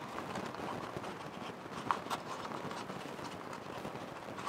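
Stiff birch bark strips rubbing and ticking under the fingers as tabs are bent and pressed down into their slots: faint irregular scraping with small clicks, and one sharper click about two seconds in.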